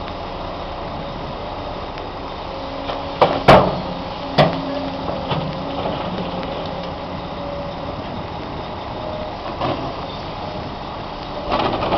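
Caterpillar 365C excavator's diesel engine and hydraulics running steadily while loading an articulated dump truck, with loud clattering bangs about three and a half seconds in and again just after, as rock and earth land in the truck's steel body. A smaller bang follows near ten seconds, and more clatter near the end.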